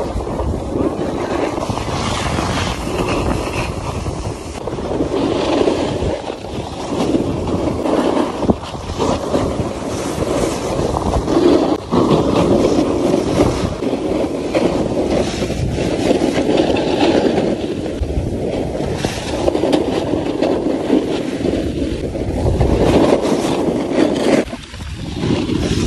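Snowboards scraping and carving over groomed snow, mixed with wind rushing on the microphone of a rider filming while going downhill. The noise swells and eases as the riders turn.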